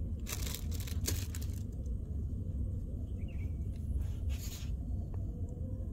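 Wind buffeting the microphone as a low, uneven rumble, with a few short rustles of hands handling bait, twice in the first second or so and once about four seconds in.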